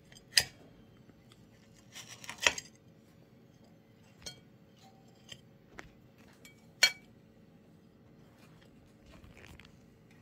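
Table knife cutting through a custard tart's Biscoff biscuit crust and knocking against the plate: a few sharp clicks and knocks, the loudest about half a second in, around two and a half seconds and near seven seconds, with smaller ticks between.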